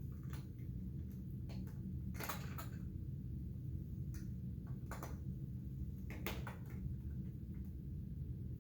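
Light clicks and taps of small die-cast model crane parts and tweezers being handled, a few scattered ticks with small clusters, over a steady low hum.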